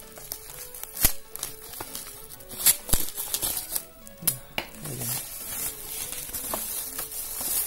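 Bubble wrap and a plastic blister pack rustling and crinkling as the pack is pulled out of its wrapping, with a few sharp clicks and snaps.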